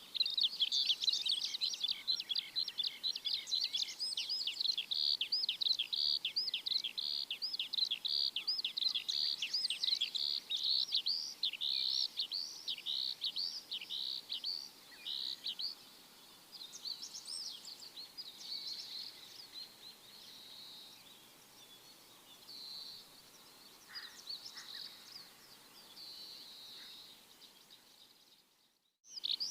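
Small birds chirping in a fast, dense run of high, repeated chirps that thin out to scattered calls after about halfway, with a brief gap of silence near the end before the chirping starts again.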